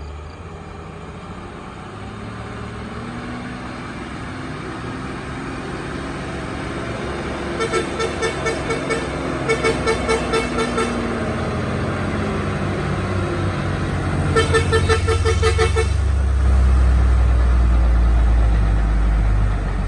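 Diesel engine of a Mercedes-Benz truck-and-trailer loaded with sugarcane, pulling up a steep climb and growing steadily louder as it approaches. A rapidly pulsing horn sounds in three stretches, at about 8, 10 and 15 seconds in.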